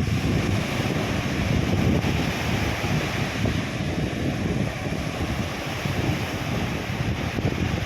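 Sea surf washing on a beach, a steady hiss of breaking water, with wind buffeting the microphone in gusty rumbles.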